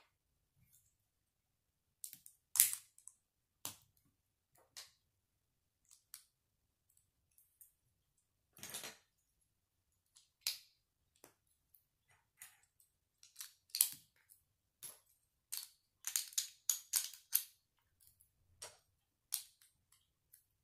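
Plastic Lego bricks clicking and snapping together as pieces are pressed on by hand. The clicks are irregular, with a quick run of them about sixteen seconds in.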